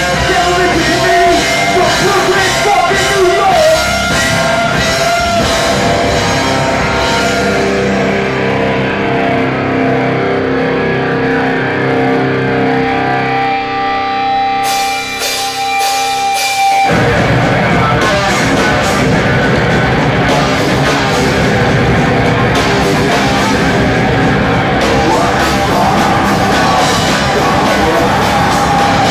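Live punk-metal band playing loud: distorted electric guitars, bass and drums with shouted vocals. About six seconds in the drums drop away, leaving held, ringing chords for about ten seconds. Then the full band crashes back in.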